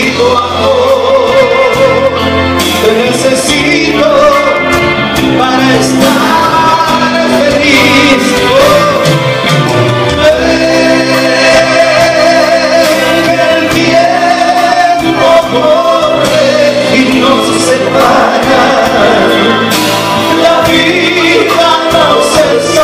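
A small live band playing a song while a male singer sings into a microphone.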